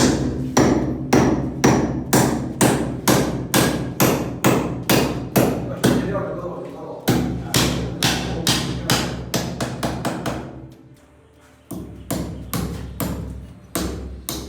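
Hammer driving nails to fix an air conditioner's wall-mounting plate to the wall: sharp, regular strikes about twice a second, with a brief pause about eleven seconds in before the hammering resumes.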